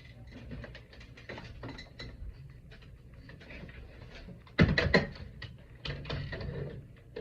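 A run of small clicks and rattles of handling and movement, with a louder clatter about four and a half seconds in.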